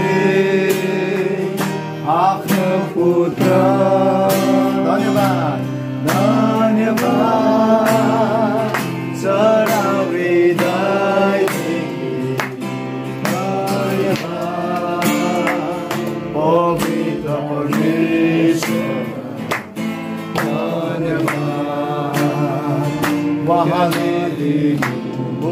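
A worship song sung with a strummed acoustic guitar, with a man's voice carrying the tune.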